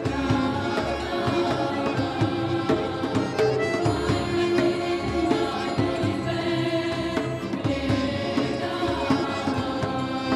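Mixed choir of men and women singing a Russian folk song in harmony, with low double bass notes underneath.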